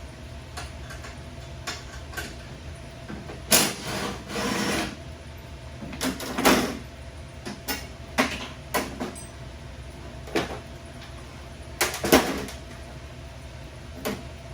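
Irregular knocks and clanks of tools and metal parts being handled during a car teardown, with a longer noisy stretch about four seconds in and a cluster of sharp knocks around twelve seconds, over a steady low hum.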